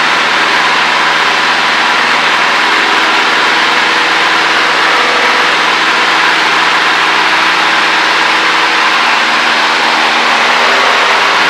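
Cessna 152's four-cylinder Lycoming piston engine and propeller running steadily in flight, a constant drone heard from inside the cockpit.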